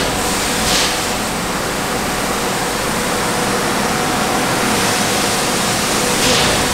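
Loud, steady rushing noise of an industrial compressed-air system running at full load, with a faint steady tone and a few short hisses.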